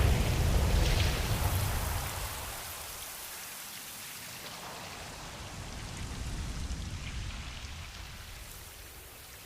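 Ocean waves washing on a shore: a wave's rush dies away over the first couple of seconds, then a smaller surge swells and fades in the middle.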